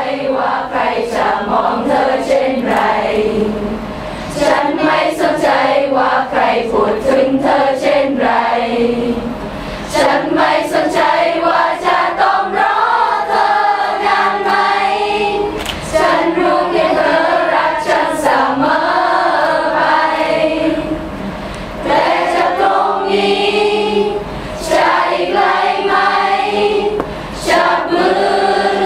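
A choir of mostly young women's voices singing together, in phrases of about six seconds with short breaths between them.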